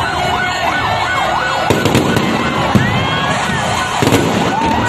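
Fireworks bursting and crackling, with several sharp bangs and brief whistles. For the first second and a half an electronic siren or alarm wails rapidly up and down, then stops as dense crackling takes over.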